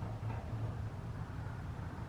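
Steady low mechanical hum over faint background noise, with no distinct knocks or clicks.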